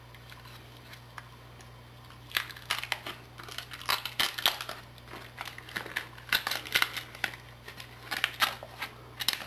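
Thin protective plastic film being peeled off a shower drain screen: irregular crinkling and crackling that starts about two seconds in and goes on in uneven bursts.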